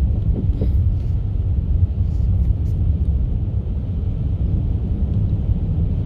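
A car driving, a steady low rumble of engine and road noise.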